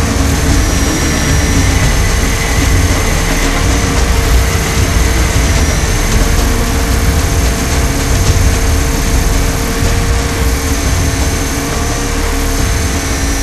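RC 500-size UH-60 Black Hawk scale helicopter in flight, heard from on board: a steady motor and rotor whine over a dense low rush.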